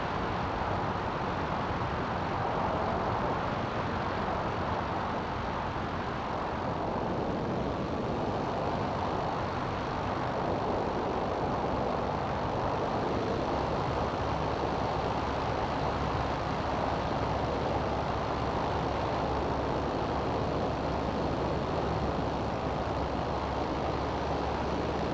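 CGS Hawk ultralight aircraft's engine running steadily, with rushing air noise over it.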